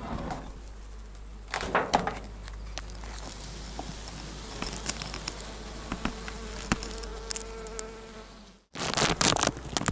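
Honeybees buzzing around an open hive, with a steady hum from a bee flying close for a few seconds in the middle. Knocks and rustling from the hive lid and wool insulation being lifted off; the sound cuts off abruptly near the end and comes back with louder handling noise.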